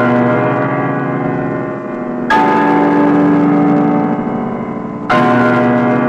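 Deep bell strokes, each ringing on with many overtones. A new stroke comes about every two and a half seconds, twice here, and the last rings away near the end.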